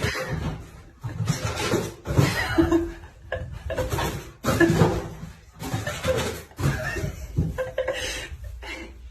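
A person laughing in repeated bursts, breaking off and starting again every second or so.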